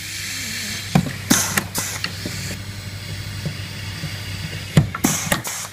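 Pneumatic pop-rivet gun setting rivets through a steel upturn. It fires twice, about a second in and again near the end; each time there is a sharp snap and a short hiss of exhausting air. A steady low hum runs underneath.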